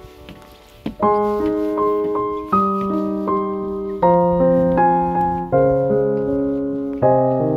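Background piano music: slow chords struck about every second and a half, each fading, starting about a second in.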